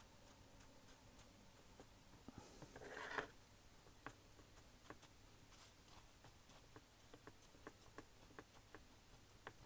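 Faint rubbing and rustling of a folded paper tissue wiped over a freshly glued wooden deck sheet, with scattered light ticks; a louder rustle about three seconds in.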